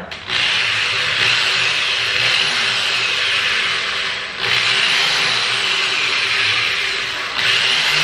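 Black+Decker corded drill running under load as it bores into a cabinet door. It runs in three long stretches with short breaks about four and seven seconds in, and its whine rises and falls after each restart.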